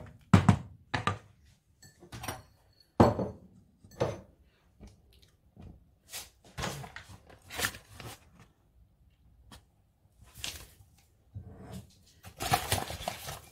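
Wooden spoon stirring and knocking in a steel pot of boiling peas thickened with rice flour, then irregular sharp knocks and plops while the thick mixture cooks, with a longer, noisier stretch near the end.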